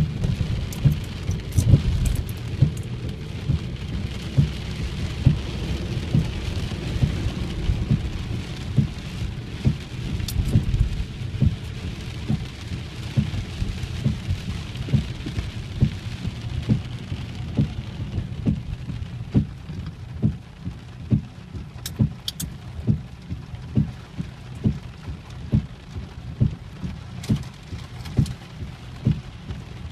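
Heavy rain pelting a car's roof and windscreen, heard from inside the cabin: a steady hiss with a regular run of low thumps a little more than one a second.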